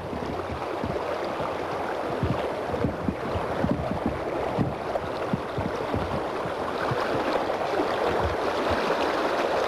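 Steady rush of flowing river water, with irregular low thumps.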